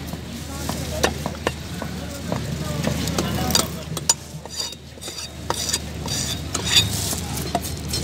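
A knife chopping queenfish into pieces on a wooden log chopping block: irregular sharp knocks of the blade on the wood, with scraping between them, over steady background noise.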